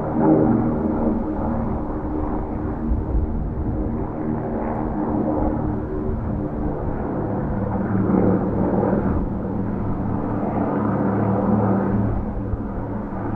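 PBY-5A Canso flying boat's twin radial engines droning steadily as it flies past, the engine note shifting a little about halfway through.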